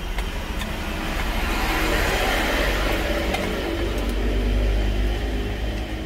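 Low steady vehicle rumble, with a vehicle passing by: a rushing noise swells about two seconds in and eases off near the end.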